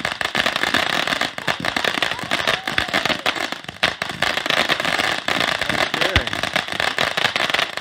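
Consumer fireworks going off with a dense, fast, irregular crackle of many small pops.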